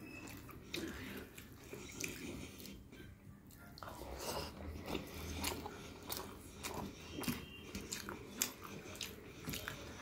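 A person eating rice by hand and chewing, with many small sharp clicks from the mouth scattered throughout. Fingers mix rice on a plate between bites.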